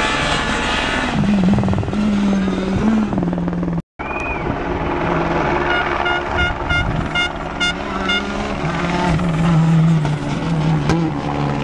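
Rally car engines at full throttle on a tarmac stage, revving up and dropping as gears change while one car passes. After a sudden cut about four seconds in, a second rally car approaches with its engine pitch climbing and passes close near the end.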